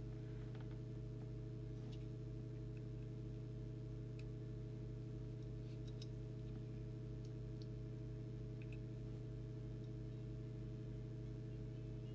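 Steady low electrical mains hum, with a few faint, scattered ticks and scratches of a small pointed tool picking at a radio's circuit board.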